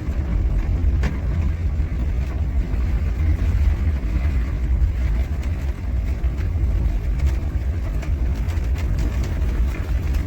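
Suzuki Jimny Sierra JB32W driving, its G13B 1.3-litre four-cylinder engine and the road noise making a steady low drone.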